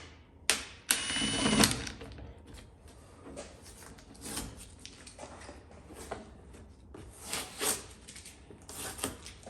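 A drill with a 7/8-inch bit runs in one short burst, with a steady high whine lasting under a second, cutting a hole in a plastic door panel. Scattered clicks and knocks of handling follow.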